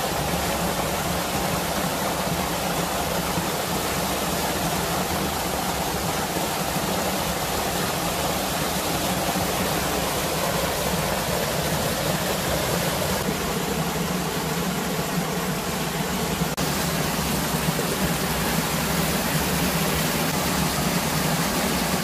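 Water running steadily through a concrete farm drainage channel, a constant even rush.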